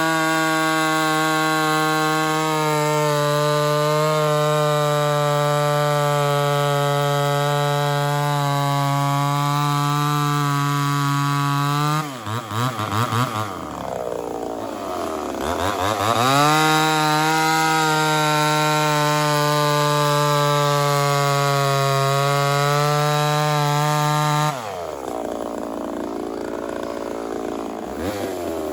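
Ported Homelite Super XL-130 two-stroke chainsaw held at full throttle at a steady high pitch, dropping to idle about twelve seconds in and revving straight back up, then held high again before falling back to a wavering idle near the end.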